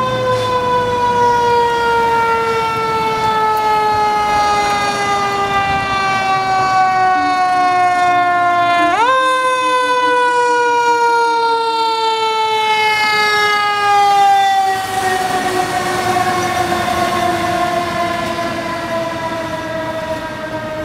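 Fire engine's mechanical siren winding down in a long, slowly falling wail, wound back up quickly once about nine seconds in, then winding down again.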